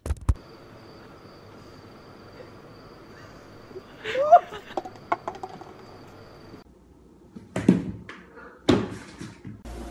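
Two thumps about a second apart near the end as a cat leaps against a wooden door. Earlier, about four seconds in, there is a short rising call.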